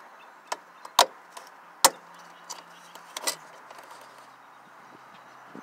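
Sharp clicks and knocks of the reproduction fuel door handle being pushed and fitted into place at a Cadillac's license plate mount, with small metal parts rattling. The two loudest knocks come about one and nearly two seconds in.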